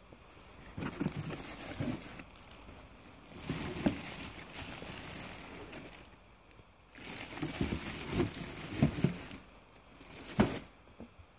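Plastic bag wrapped around a pair of rubber flip-flops crinkling as it is handled, in three stretches of a few seconds each, with one sharp knock near the end.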